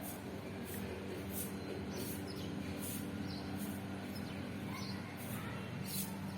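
Birds chirping in short, scattered calls, with a cricket's very high chirps repeating about twice a second, over a steady low hum.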